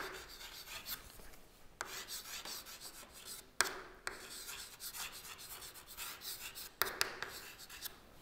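Chalk writing on a chalkboard: scratching strokes as letters are formed, with a few sharp taps of the chalk against the board.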